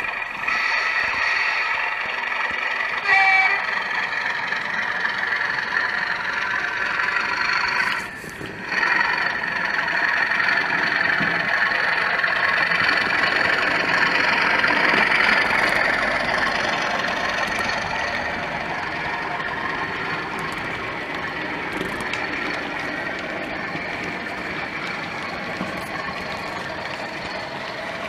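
Sound-fitted OO gauge model diesel locomotive: its DCC sound decoder plays a diesel engine working under load, mixed with the train's wheels running on the track as it hauls a rake of tank wagons past. A short tone sounds about three seconds in.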